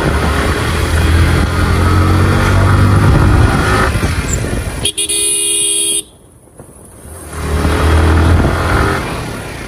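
Motorcycle engine and road noise while riding, the engine pitch rising as it accelerates. About five seconds in a vehicle horn sounds for about a second, then the sound drops away sharply for about a second before the engine noise returns.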